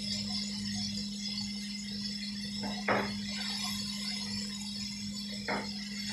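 Food frying in a skillet on a gas stove, a steady hiss, with a fork knocking twice against the pan, the knocks about two and a half seconds apart. A low steady hum runs underneath.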